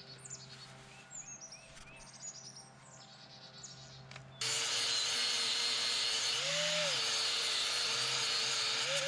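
Birds chirping, then about four seconds in an angle grinder starts abruptly and runs loud and steady, its pitch rising and falling briefly a few times as it grinds into a wooden header.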